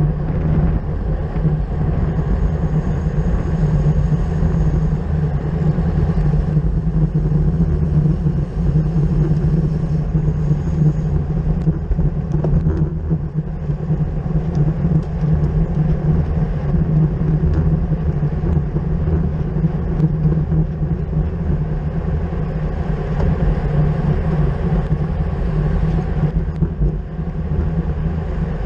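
Steady wind and road noise from a camera riding on a racing bicycle at speed: a constant low rush with no breaks.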